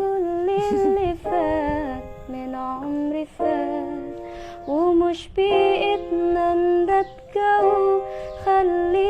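Background music: a song with a voice singing a slow, gliding melody over sustained accompaniment.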